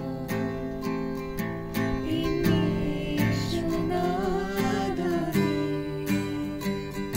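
Acoustic guitar strummed in a steady rhythm, with voices singing a Christian song.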